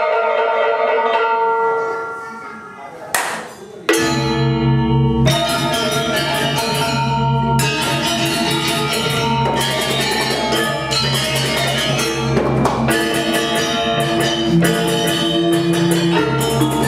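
Balinese gamelan music. Ringing metallophone tones die away about two seconds in. After a sharp accent the full ensemble comes in loudly near four seconds, with dense, rapid metallophone strokes over a steady low pulse.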